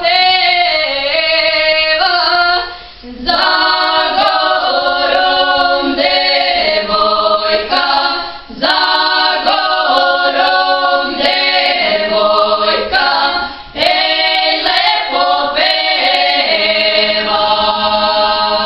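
Small vocal group of young women and a young man singing a Serbian folk song a cappella in several voice parts. The long sung phrases break off briefly three times, about 3, 8 and 14 seconds in.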